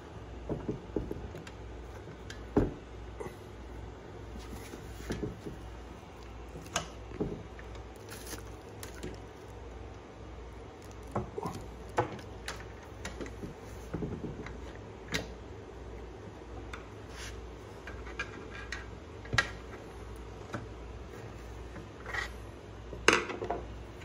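Hands handling the aluminium mount and plastic parts of a trolling motor: irregular clicks, light knocks and rubbing, with a sharper knock a few seconds in and another near the end.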